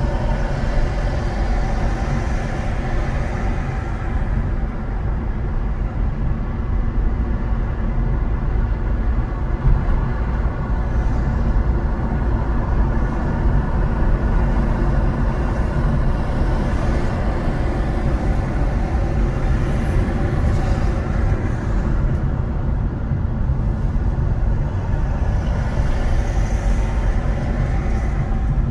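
Steady engine drone and tyre rumble inside a moving car's cabin, cruising at an even speed.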